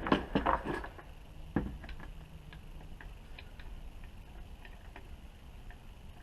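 Quick clicks and a sharper knock from small metal carburetor parts being handled and set together on the bench: the broken corner of the throttle plate being fitted back on. Fainter ticks follow over a low steady hum.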